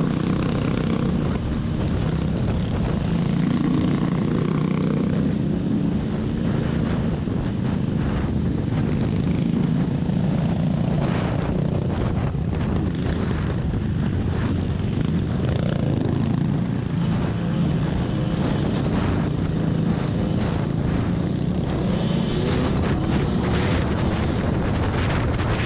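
Off-road vehicle engine running steadily under way, its pitch drifting a little with the throttle, with short knocks and rattles from rough ground in the second half.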